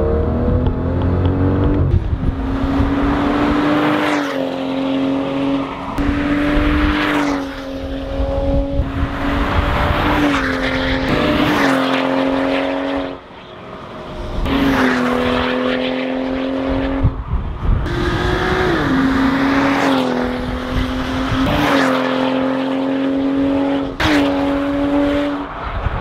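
BMW X5 xDrive35i's turbocharged straight-six running hard through an ARMYTRIX valved exhaust, loud and steady, its note holding one pitch for a second or two at a time and then stepping up or down, with a brief drop in level about halfway through.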